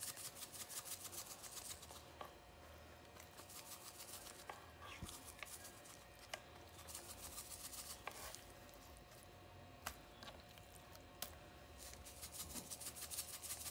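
Seasoning being shaken from a shaker jar over fish fillets: runs of quick rhythmic rattling at the start, about eight seconds in and near the end, with a few sharp clicks of the jar being handled between.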